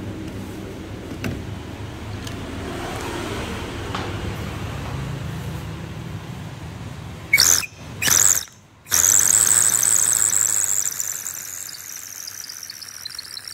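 Vietnamese bamboo water pipe (điếu cày) being drawn on, sounding its whistling 'kêu': two short sharp whistles, then a long high whistle that slowly slides lower in pitch and fades out.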